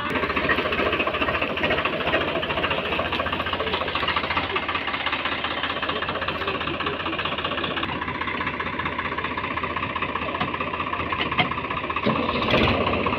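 Swaraj 855 FE tractor's diesel engine running steadily with a fast, even knocking beat. It gets briefly louder near the end.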